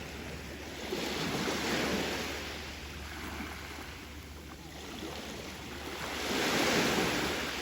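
Sea waves breaking and washing ashore: two rising and falling swells of surf noise, the second, near the end, louder.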